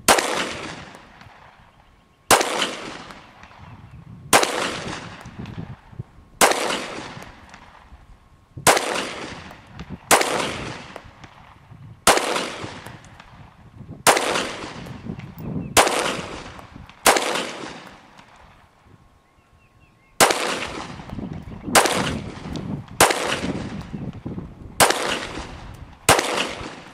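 Glock 17 9mm pistol firing about fifteen single shots, one every one to two seconds, with a pause of about three seconds partway through; each shot cracks and dies away in a trailing echo.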